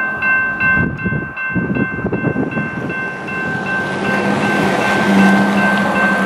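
An approaching GE ES44AC diesel locomotive leading a train, its engine and wheels a rumble that grows louder, with a low steady drone coming in past halfway. Over it a warning bell dings about three times a second.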